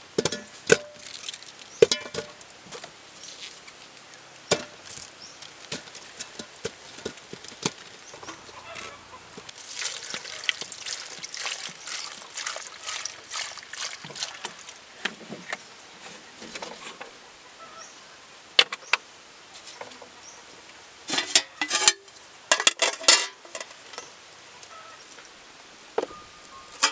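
Ears of corn knocking and clinking against an aluminium cooking pot as they are set in, then water poured in from a plastic bottle, splashing and hissing for several seconds. Near the end, quick clusters of sharp clatters as the pot and its metal lid are handled.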